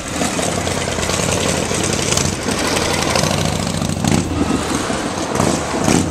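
Customized Moto Guzzi motorcycle, believed to be a V11, its air-cooled transverse V-twin engine idling steadily through an aftermarket exhaust.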